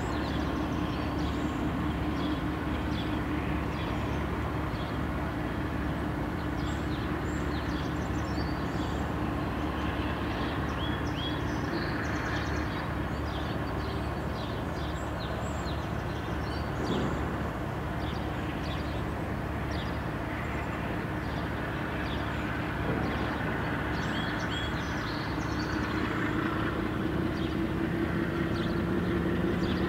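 Diesel freight locomotives running at low speed in the distance: a steady engine drone with a low hum, rising slightly near the end.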